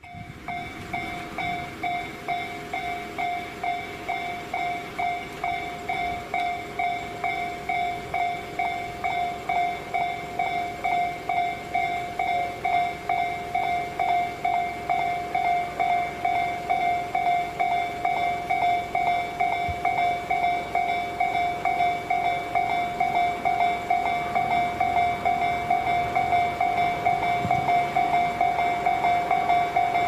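Japanese railroad crossing warning bell ringing a fast, even run of identical dings, warning of an approaching train. It grows a little louder over the first half, then holds steady.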